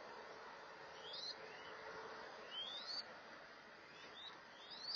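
Mourning dove chicks begging while being fed by a parent: about five thin, rising 'thweet' whistles over a steady hiss.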